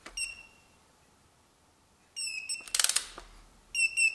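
Electronic torque wrench beeping as the 30 N·m set torque is reached on camshaft bearing cap bolts. There is a short beep at the start, then about two seconds of quiet, then a quick run of ratchet clicks and more beeps from about two seconds in.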